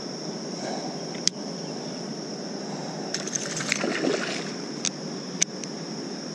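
Sharp clicks and a short rattling spell from a baitcasting rod and reel being handled, about a second in, midway and near the end, over a steady high-pitched buzz of insects and a low rush of water against the kayak.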